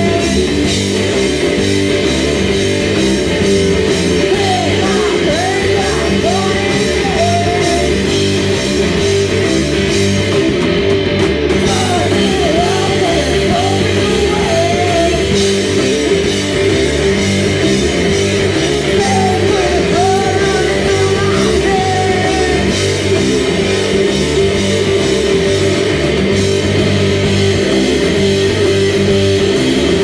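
Rock band playing live at full volume: distorted electric guitars, bass and drums, with a singer's voice in places.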